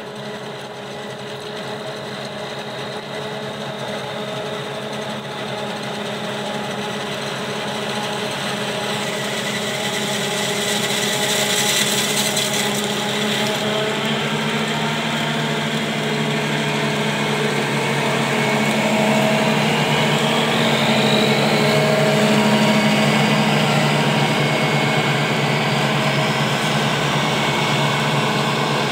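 New Holland self-propelled forage harvester chopping corn, its engine and cutterhead running with a steady drone and a high whine over it, growing louder as it comes closer, with the silage truck's engine running alongside.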